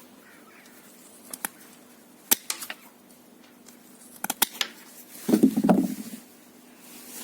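Fiskars pruning shears cutting a dry branch. Scattered sharp clicks and snaps come from the blades and the wood, then a louder, duller crunch about five seconds in.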